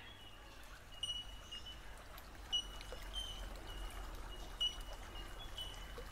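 A small rainforest creek trickling faintly, with short high-pitched calls repeating every half second or so.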